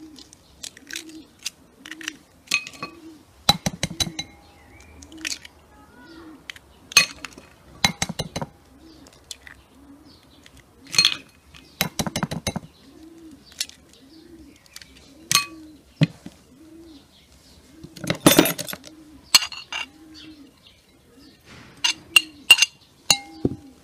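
Eggs knocked and cracked against the rim of a glass bowl: sharp clinks every second or two. Underneath, a pigeon coos in a steady repeated rhythm, a little under a second apart.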